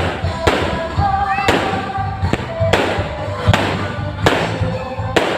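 Fireworks salvo: shells bursting one after another, a sharp bang every half second to a second, each trailing off in an echo, with music playing underneath.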